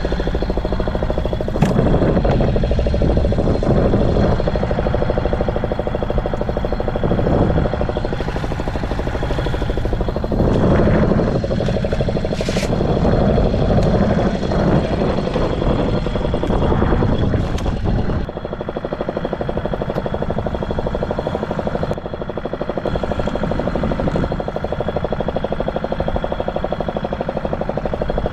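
Small fishing boat's engine idling steadily. Irregular knocks and clatter on board come over it for the first two-thirds, then die away.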